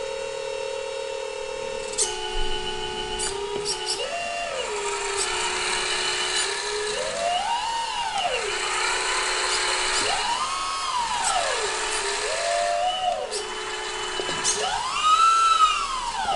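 Electric hydraulic pump of a radio-controlled Volvo L250G wheel loader whining at a steady pitch. It speeds up in smooth rising-and-falling sweeps about five times as the hydraulic functions are worked, the last sweep near the end the loudest.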